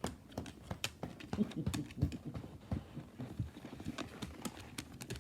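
Dogs' claws clicking on a hard floor: quick, irregular ticks, with a few soft low sounds in the middle.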